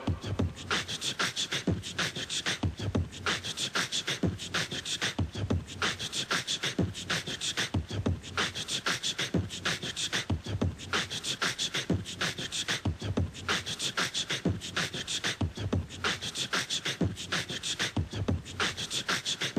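Rhythmic percussion beat: sharp clicks several times a second, with low thumps among them and no melody.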